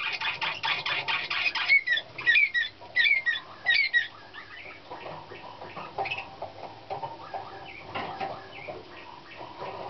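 Young Slavujar song canary singing: a fast rattling trill, then a run of short repeated whistled notes, breaking off about four seconds in. Fainter scattered chirps follow.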